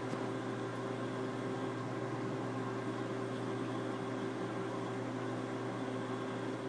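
Steady electrical hum with an even hiss from a reef aquarium's running equipment: its pumps and water circulation.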